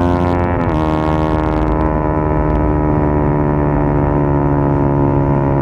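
Motorcycle engine and exhaust running at a steady note, with a brief drop in pitch about half a second in before it holds even.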